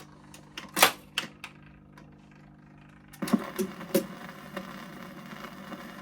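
Surface noise of a 78 rpm shellac record in its lead-in groove: a few sharp clicks and crackles, then a steadier hiss with occasional pops from about three seconds in, before the music starts.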